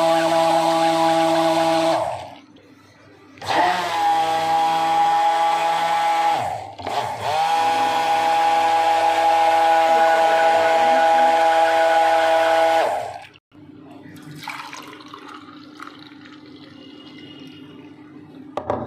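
Corded electric blender churning curd and water into lassi in a steel pot: a steady motor whine that stops about two seconds in, starts again with its pitch rising as it spins up, falters briefly, then runs on until it is switched off about two-thirds of the way through. Much quieter liquid and handling sounds follow as the lassi is poured out.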